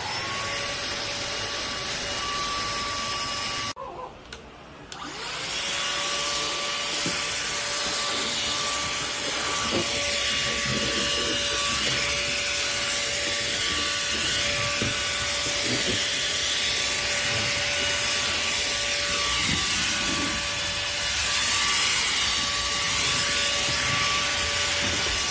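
Small cordless handheld vacuum cleaner running with a steady whine over a rush of air. It cuts out about four seconds in, then starts again a second later, its pitch rising as the motor spins up. Irregular rubbing noises come and go over the steady running sound.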